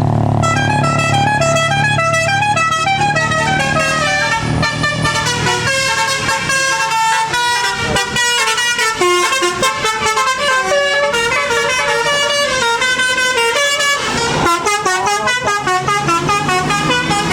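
Indonesian bus 'telolet' musical horn playing a fast melody of short stepped notes without a break, with the tune changing near the end, over the low rumble of passing buses.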